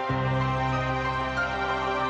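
Background music: held chords over a low bass note that changes just after the start.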